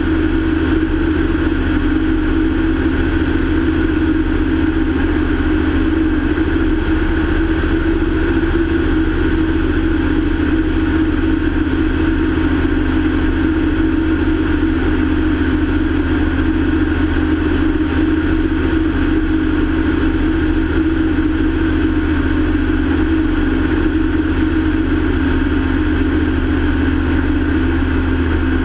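Single-engine light aircraft's engine and propeller running steadily in cruise flight, one constant drone with no change in pitch.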